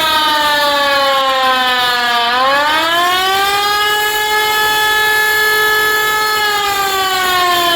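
Civil defense siren wailing as an attack warning. Its pitch slides down for about two seconds, swings back up, holds steady for a few seconds, then starts to fall again near the end.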